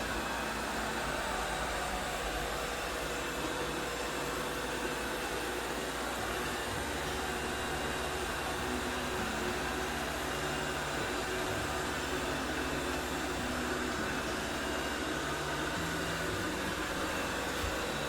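iMartine C900 robot vacuum cleaner running with a steady whir of its suction motor and brushes.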